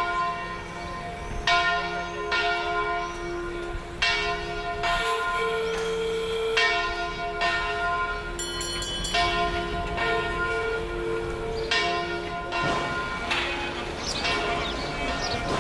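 Church bells ringing: several bells of different pitch struck one after another at irregular intervals, each left ringing on so the tones overlap.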